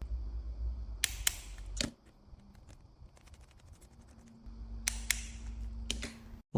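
Sharp light clicks and taps of small tools and phone parts being handled on a repair bench, a few at a time, over a low hum that comes and goes twice.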